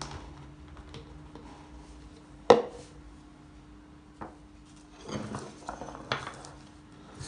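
Bowls and kitchen things being set down and moved on a countertop: one sharp knock about two and a half seconds in, a few light taps, then a cluster of clinks and rustles near the end as a glass bowl and a lemon on a saucer are shifted. A faint steady hum runs underneath.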